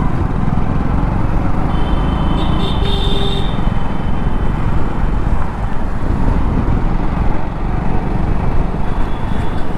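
Motorcycle engine running steadily as the bike rides along a busy street, heard from the rider's seat with a steady rush of air and traffic around it.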